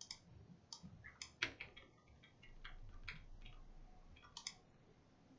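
Faint, irregular clicks of a computer mouse, about a dozen, some in quick pairs.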